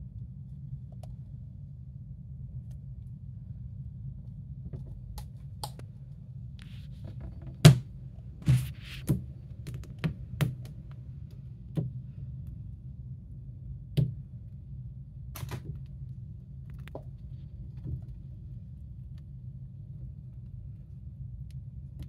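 A cat batting a suction-cup spring-stick pom-pom toy on a hard plastic surface: about ten sharp taps and knocks spread through the middle, the loudest about a third of the way in. A steady low hum lies underneath.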